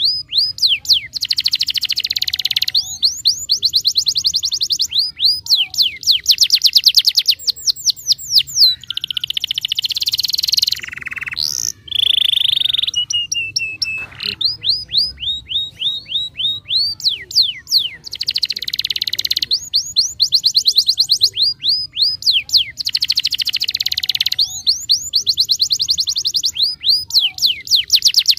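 Domestic canary in full song: long phrases of very fast trills made of rapidly repeated falling notes, with a buzzier passage and a brief held whistle about halfway through.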